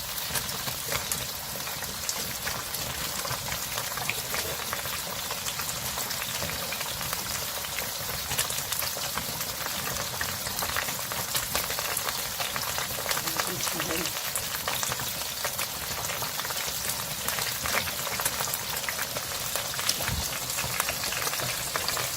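Pot of abalone rice porridge bubbling and spluttering on the stove, a steady crackling hiss of small pops as it cooks toward done.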